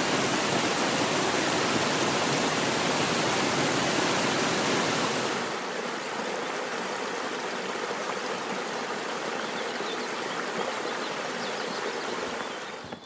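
Mountain stream rushing over rocks, a steady rush of water. About five seconds in the rush drops to a softer level, and it fades near the end.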